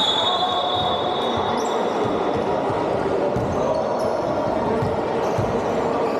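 Basketball bouncing on a hardwood sports-hall floor, with a high whistle tone at the start that fades away, over a steady murmur of voices in a large echoing hall.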